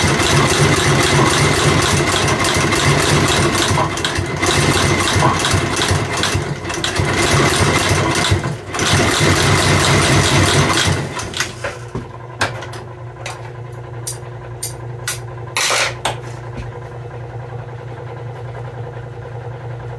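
Sutton outsole stitching machine running and sewing a rubber half sole to a leather welt, a loud rapid rhythmic clatter of stitch strokes. The stitching stops about eleven seconds in, leaving the machine's motor humming with a few scattered clicks.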